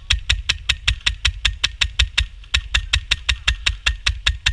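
Airsoft gun firing a long, steady string of sharp shots, about six a second, with a brief pause partway through.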